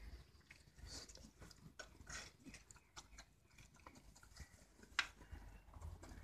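Faint wet licking and mouthing sounds from a large German Bear Dog and a cat grooming each other, a scatter of soft smacks and ticks, with one sharper click about five seconds in.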